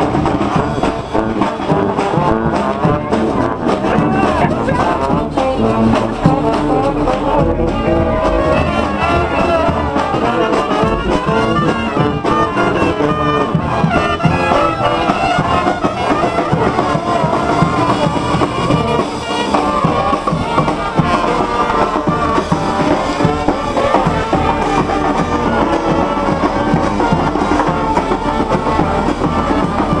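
Street brass band playing live, trombones and sousaphones carrying the tune with trumpets.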